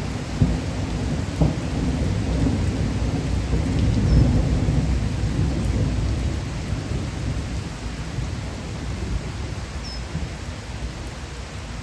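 Steady rain falling on pavement and lawn, under a low rolling rumble of thunder that swells about four seconds in and slowly fades.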